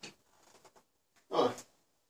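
A person's short breathy exhale, once, about a second and a half in.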